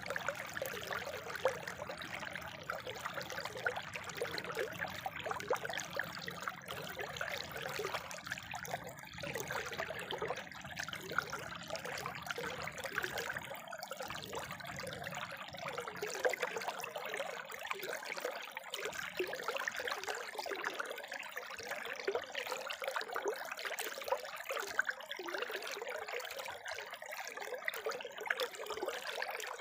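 Spring water trickling and splashing steadily, with a low rumble underneath that falls away about halfway through.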